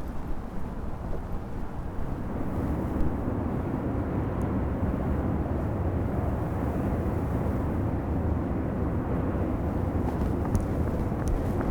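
Steady low rumble of outdoor background noise, like distant traffic, growing slightly louder about two seconds in, with a few faint clicks near the end.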